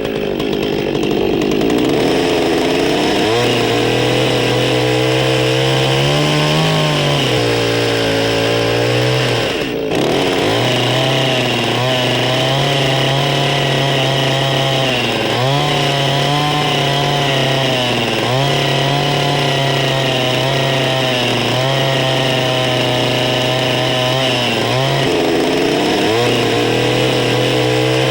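Chainsaw running and cutting into a log to carve out a round saddle notch, its engine note dipping under load and rising again every couple of seconds, with a brief break about ten seconds in.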